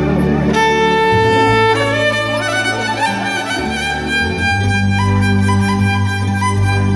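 Amplified violin with a pickup playing a melody with long held notes, over a steady low accompaniment that changes pitch every second or so.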